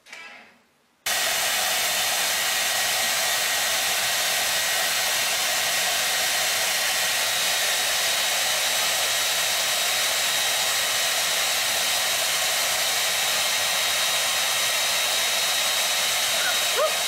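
Handheld hair dryer switching on abruptly about a second in, then blowing steadily: an even rush of air with a faint, thin, high motor whine.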